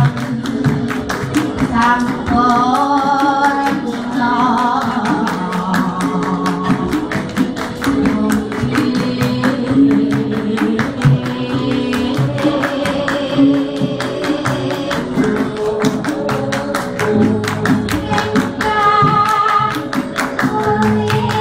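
Javanese gamelan playing palaran: struck bronze metallophones and gongs keep a quick, steady beat under sustained ringing notes. Sung tembang verse lines enter and drop out several times.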